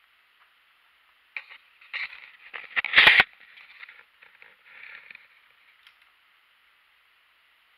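Crackling, scraping and knocking of twigs, wood and debris being disturbed, over a steady hiss. The sounds come in a cluster from about a second and a half in, with one loud thump about three seconds in.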